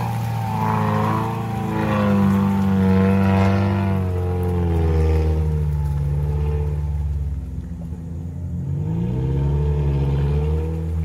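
Off-road 4x4's engine revving up and down as it churns through deep mud ruts, its pitch rising and falling several times, with a short lull about eight seconds in.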